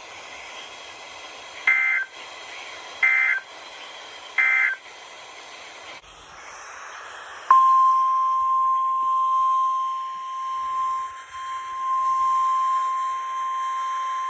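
Three short bursts of warbling NOAA Weather Radio SAME digital data, the coded Emergency Alert System signal, about a second and a half apart. About halfway in, the steady 1050 Hz weather radio warning alarm tone starts and holds without a break.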